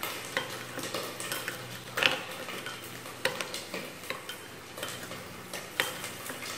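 A metal spoon stirring a thick sauce mixture in a small glass bowl, clinking against the glass in irregular light ticks. The loudest clicks come about two seconds in, again just after three seconds, and near six seconds.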